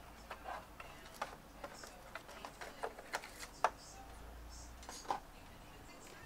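Irregular light clicks and taps of a screwdriver and hands working on the stand mount of a Dell all-in-one PC while it is being removed.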